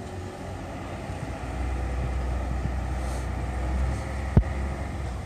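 Low engine rumble and hum of the pirate-style sightseeing ship Victory as it approaches the pier, growing louder about a second and a half in. A single sharp knock comes about four seconds in.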